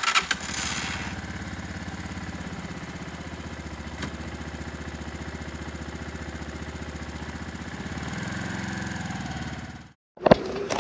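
Daelim Daystar 125 motorcycle's small air-cooled V-twin engine starting with a loud burst, then running steadily at idle with an even pulse. It runs a little louder for its last two seconds and stops abruptly near the end.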